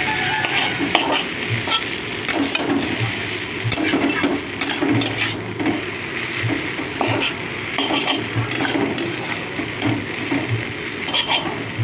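Chow mein being stir-fried in a pan: a steady sizzle, with a utensil scraping and knocking against the pan in an uneven rhythm.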